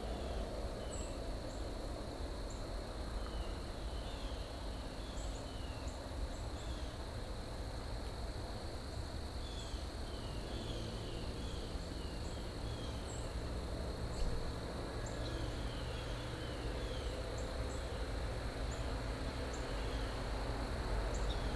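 Quiet evening outdoor ambience: insects chirping, with a steady high-pitched drone and many short soft chirps throughout, over a faint low rumble. A small tap about 14 seconds in.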